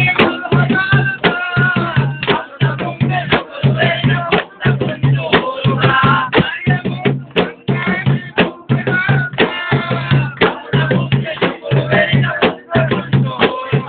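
Bodu beru: large Maldivian drums beaten by hand in a fast rhythm over a steady deep beat, with voices singing over the drumming.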